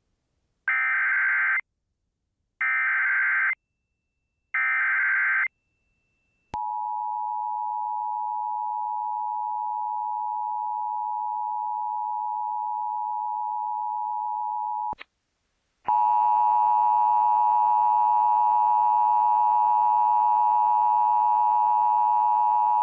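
Emergency Alert System activation: three one-second bursts of screeching SAME header data about two seconds apart, then the steady two-tone EAS attention signal for about eight seconds. It ends with a click, and after a short gap a second, louder and buzzier steady alert tone follows.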